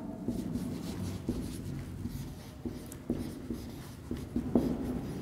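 Marker pen writing on a whiteboard: short, irregular scratching strokes as a few words are written.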